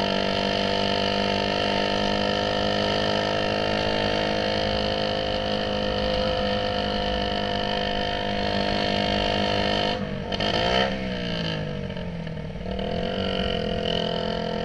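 Motorcycle engine running under way through a loud aftermarket exhaust tip, holding a steady note for about ten seconds; then the note drops for a couple of seconds and climbs again.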